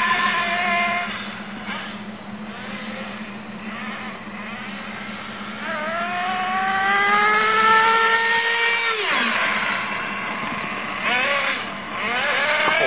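Nitro RC car's small two-stroke glow engine revving as the car drives, a high buzzing whine. About halfway through, a long rise in pitch holds for a few seconds and then drops off suddenly. Shorter rising revs come near the end.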